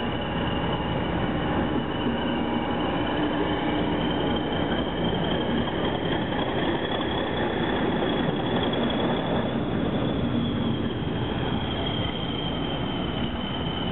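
English Electric Class 40 diesel locomotive moving slowly past, its engine running with the class's high turbocharger whistle over a deep rumble. The whistle rises slightly in pitch through the middle and eases back near the end.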